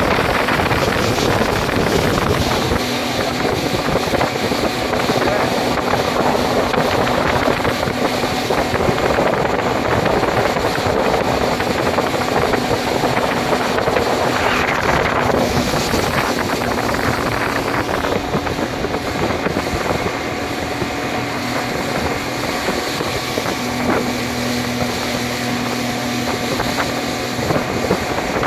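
Small speedboat's motor running steadily under way, with wind on the microphone. A brief rising rush about halfway through.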